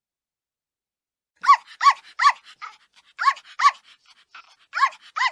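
A dog barking in short, high barks, mostly in quick pairs, starting about a second and a half in.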